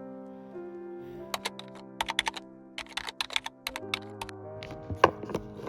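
Slow background music with long held notes, and a run of quick, irregular sharp clicks over it from about a second in, a few louder ones near the end.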